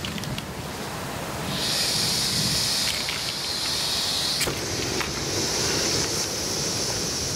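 Backpacking canister stove: gas hisses from the opened valve starting about a second and a half in, a sharp click comes about four and a half seconds in as it lights, then the burner flame hisses steadily.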